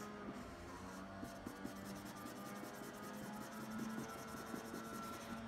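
Marker scribbling on paper in quick back-and-forth colouring strokes.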